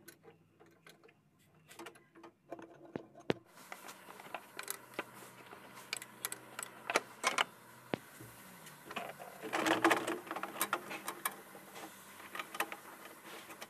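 Scattered clicks, taps and light knocks of hands handling the radiator, shroud and plastic cooling fan, with a busier run of clicks around ten seconds in.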